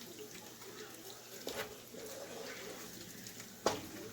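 Ground beef and chicken sausage frying in a pan with a low steady sizzle while being stirred, a utensil scraping and clicking against the pan, with one sharp knock near the end.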